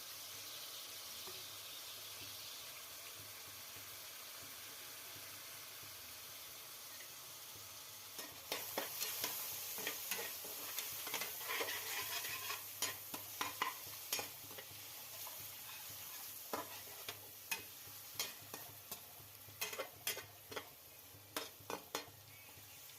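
Mushroom sabzi frying in a pan with a steady sizzle. From about a third of the way in, a spoon stirs it, with repeated irregular clicks and scrapes against the pan.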